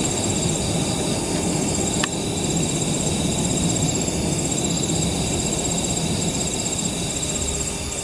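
Insects chirping in a fast, even, pulsing trill over a loud, steady low rushing noise, with one sharp click about two seconds in.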